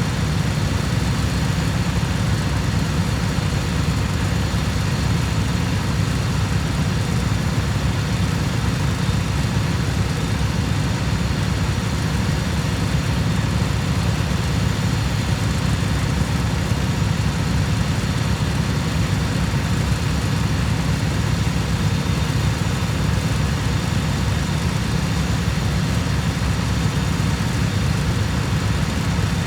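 Cub Cadet lawn tractor engine running steadily, a constant low rumble with no change in speed.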